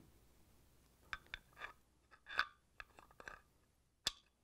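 A KitchenAid stand mixer's hard plastic gear housing and greased gears being handled and fitted together: a scatter of faint, short clicks and taps, with one sharper tap near the end.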